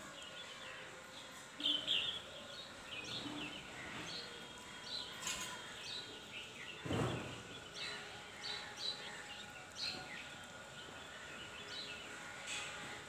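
Small birds chirping in short, high calls, scattered throughout. One dull thump about seven seconds in.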